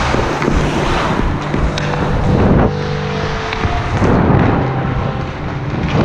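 Ice hockey skate blades scraping and carving the ice in repeated strides, with wind noise on the body-worn action camera's microphone.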